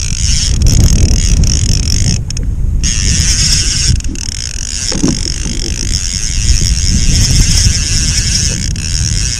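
Wind buffeting the microphone, a loud, uneven low rumble over a steady high hiss.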